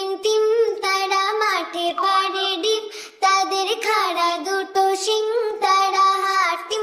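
A high, child-like voice singing a nursery-rhyme melody, phrase after phrase, with a short break about three seconds in.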